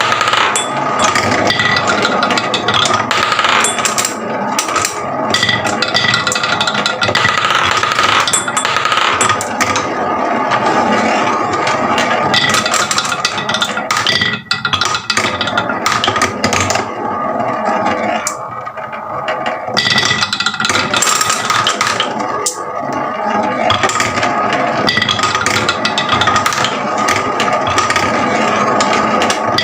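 Many marbles rolling and clattering down wooden marble-run tracks, a steady dense rattle of clicks and knocks.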